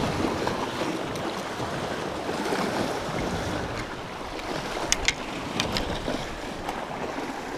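Sea surf washing against rocks, with wind on the microphone. A few light clicks come in the second half.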